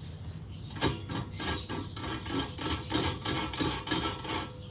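Threaded rod of a bottom bracket cup-press tool being screwed in by hand, metal threads and washers rasping in short repeated strokes, about two to three a second.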